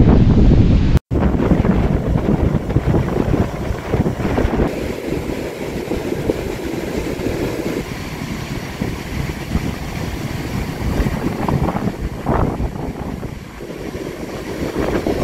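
Strong wind buffeting the microphone in gusts, with surf breaking on the beach beneath it. The sound cuts out for an instant about a second in.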